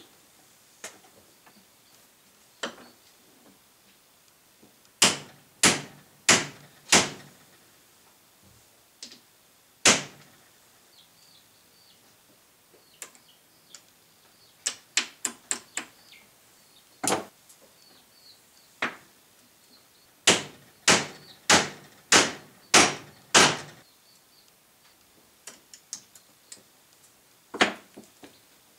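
Hammer blows on steel, driving a U-joint bearing cup into a driveshaft yoke. The sharp, ringing strikes come in groups: four heavy blows about a second apart, a quick run of lighter taps, then six heavy blows in a row, with a few single strikes between.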